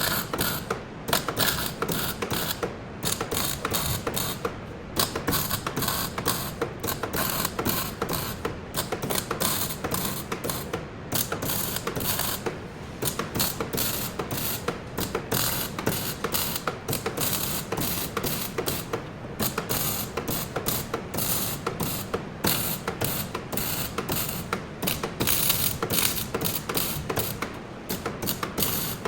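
Rapid, irregular mechanical clicking from tool work on a car, going on almost without a break, with a few short pauses.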